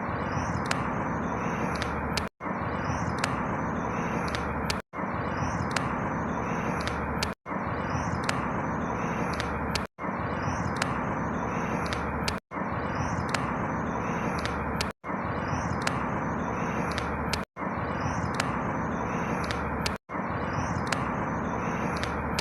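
Steady rushing outdoor ambience with faint high chirps: a clip of about two and a half seconds looped over and over, with a brief dropout at each repeat.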